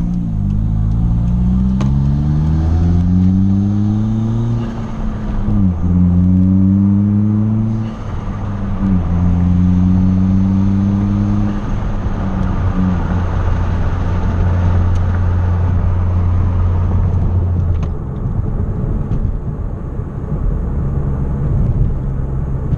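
Hyundai Genesis Coupe 2.0t's turbocharged four-cylinder engine accelerating through the gears. Its pitch climbs and drops back at each upshift, about three times in the first twelve seconds, then holds steady at cruise.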